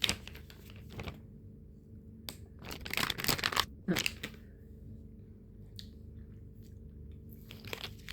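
Snack packaging being handled, crinkling and crunching in short bursts, the longest around three seconds in.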